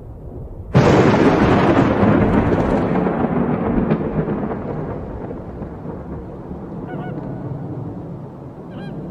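A thunderclap breaks sharply about a second in and rumbles away slowly over several seconds. Two faint honking calls come near the end.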